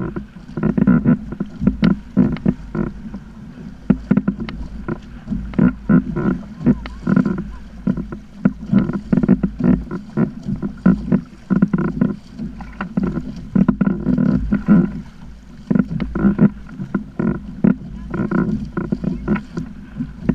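Water slapping and knocking irregularly against a Hobie sit-on-top kayak's plastic hull, with a steady low rumble of wind on the microphone.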